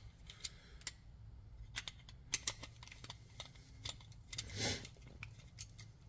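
Faint metallic clicks and scrapes of a screwdriver backing out the brass terminal screws on a 220V dryer receptacle, opening them up to take the wires. A brief soft hiss about two-thirds of the way through.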